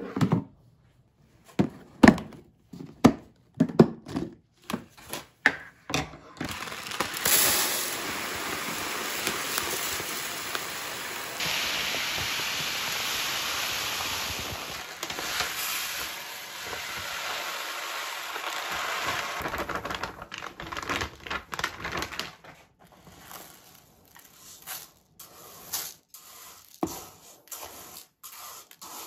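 A plastic rice bin knocking and clicking as it is handled, then uncooked rice pouring from its bag into the bin as a steady rushing hiss for about thirteen seconds. After that come scattered clicks and scrapes of a plastic measuring cup scooping the rice.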